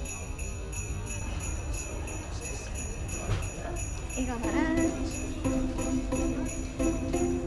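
Christmas background music led by sleigh bells shaken in a steady rhythm; a pitched melody comes in about four seconds in.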